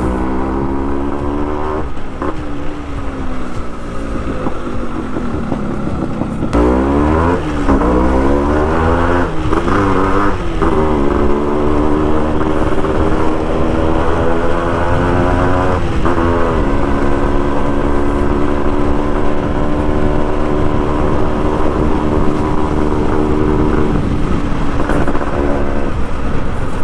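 Motorcycle engine heard from the saddle while riding, revving up and dropping in pitch at several gear changes in the first half, then holding a steady cruising note.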